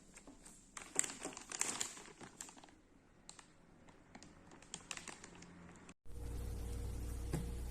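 Crinkling and clicking as the part and its plastic packaging are handled. About six seconds in, after a brief break, a steady electrical hum starts: the 110 V washing-machine drain valve motor switched on.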